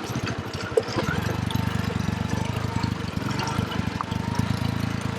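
Hero Honda CD100's small single-cylinder four-stroke engine running steadily as the motorcycle is ridden, its firing pulses coming rapidly and evenly.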